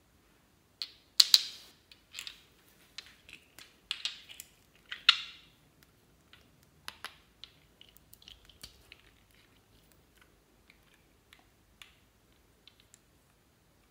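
Clear slime squelching and crackling as two doll-shaped bottles are pressed and worked into it in a glass bowl, with irregular sharp clicks and pops. The clicks are loudest and thickest in the first five seconds and sparser after that.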